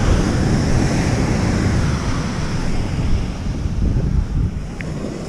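Wind buffeting the microphone with a gusting low rumble, over the steady wash of breaking surf.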